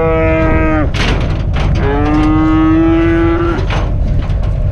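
Dairy heifer mooing twice: one long call that ends about a second in, then another held for nearly two seconds, with a few sharp knocks between them.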